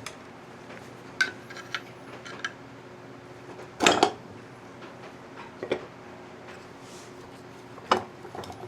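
Metal motorcycle parts clinking as the internals are lifted out of a stator cover: a few separate clinks and knocks, the loudest about four seconds in.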